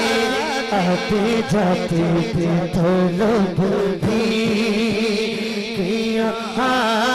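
A man singing a naat, an Urdu devotional song, into a microphone: a wavering, ornamented melody with long held notes.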